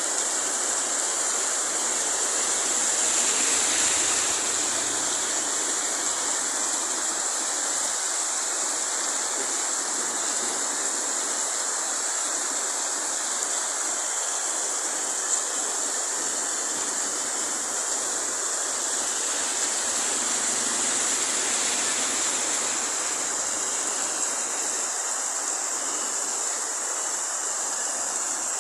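Heavy rain falling in a steady downpour, a continuous even hiss.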